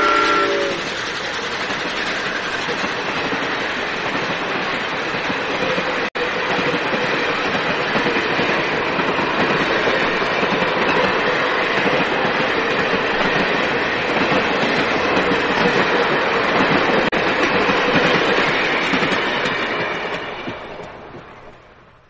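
The tail of a steam locomotive's whistle chord in the first second, then a steam train running by with a steady rush of exhaust and wheels clattering over rail joints, fading away over the last few seconds.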